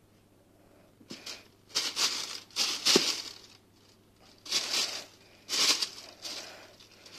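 Plastic bag crinkling in about six short bursts as a kitten pounces into it while chasing a ribbon, starting about a second in and loudest near the middle.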